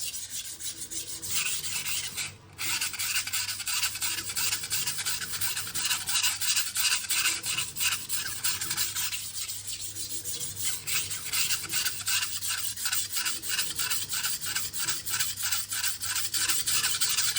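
Steel knife edge stroked back and forth on a coarse 400-grit sharpening stone: a fast, rhythmic rasping scrape, about two to three strokes a second, with one brief pause about two seconds in.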